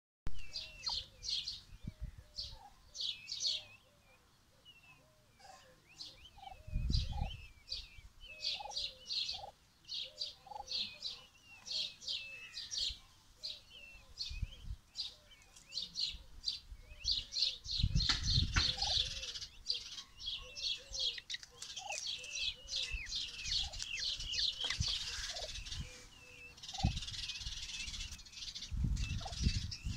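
A mixed brood of peachicks and domestic chicks peeping without pause, several short, high, falling peeps a second, with a hen clucking softly and low beneath them. A few low rumbles come in about seven seconds in, around eighteen seconds and near the end.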